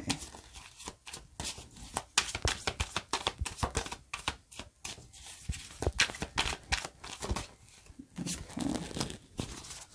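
A thin-cardstock tarot deck being handled and turned over card by card, a quick irregular run of light paper flicks and clicks.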